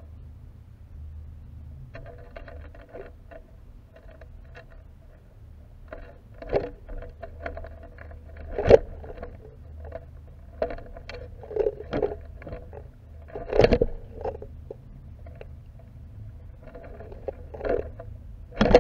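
Irregular knocks and scrapes over a steady low rumble, with a few sharper knocks about six and a half, nine, twelve, fourteen seconds in and again at the very end.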